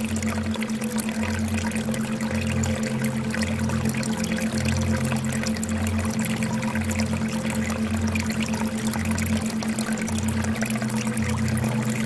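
Aquarium water pouring and trickling steadily, over a steady low hum with low tones that alternate slowly underneath.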